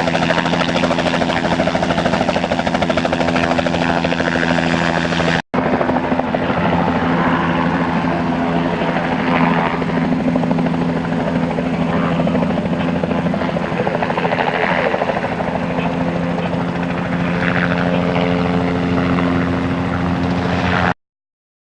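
Helicopter running steadily overhead, its rotor and engine making a loud, even drone. The sound drops out for an instant about five seconds in and cuts off suddenly near the end.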